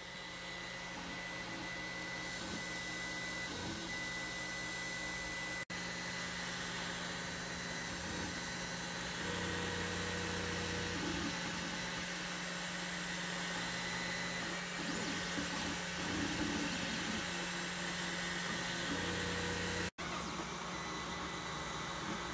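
Creality Ender 3D printer running mid-print: a steady whir of its cooling fans, with stepper-motor hums that change pitch as the print head moves. The sound breaks off for an instant twice.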